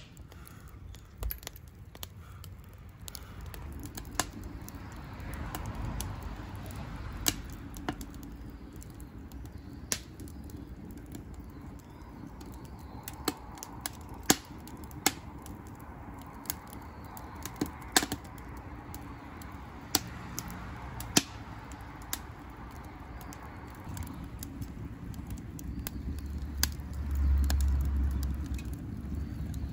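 Wood fire crackling: sharp, irregular pops and snaps over a low rumble that grows louder near the end.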